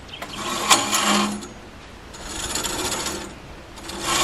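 Bandsaw mill blade scraping as its bandwheel is turned by hand to let the blade find its tracking. Three rasping swells, each a little over a second long.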